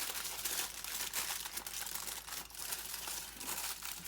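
Aluminium foil crinkling and crackling as it is folded and wrapped tightly around a banana, with a steady run of small crackles.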